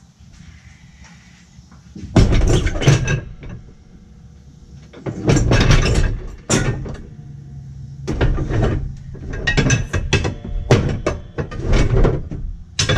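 Close knocks, clunks and rustling from someone handling things right beside the camera inside a pickup, in several bursts after a quiet first two seconds.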